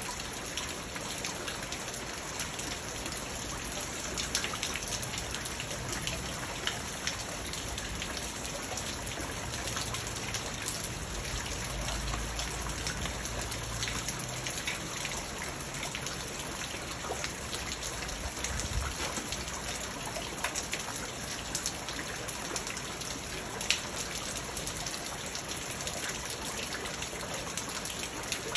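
Steady rain falling on a garden pond, its rocks and plants, with many single drops ticking. Water splashes steadily into the pond. A faint low rumble comes through about halfway through.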